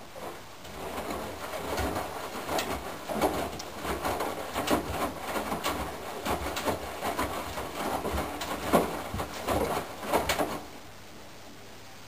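Candy GrandO Plus front-loading washing machine drum tumbling a wet load of laundry in water: irregular swishing, sloshing and soft thumps of the clothes falling for about ten seconds. It then stops near the end, leaving only a faint steady hiss as the drum pauses before its next turn.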